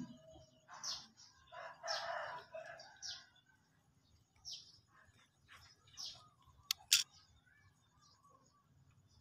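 Birds calling in the background: short high chirps every second or two, and one fuller, longer call about two seconds in. Two sharp clicks about seven seconds in are the loudest sounds.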